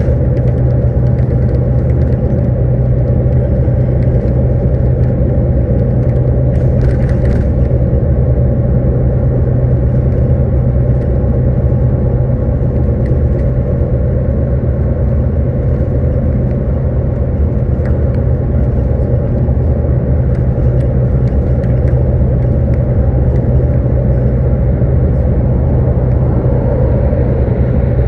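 Steady low rumble of a moving vehicle, heard from inside its cabin.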